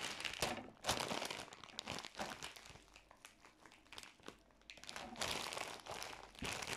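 A plastic chip bag (a Patos packet) crinkling as it is handled, in irregular rustling bursts that die down for a couple of seconds in the middle and then pick up again.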